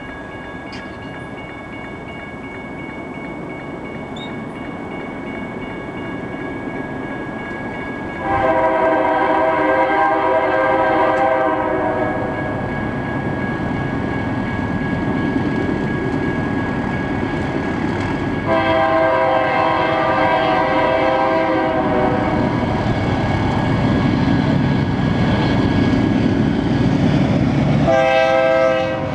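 Diesel locomotive's multi-chime air horn blowing for the grade crossing as a BNSF stack train approaches: a long blast about 8 seconds in, another about 18 seconds in, and a short one near the end. Under it the rumble of the train grows louder. A crossing bell rings steadily until about halfway through.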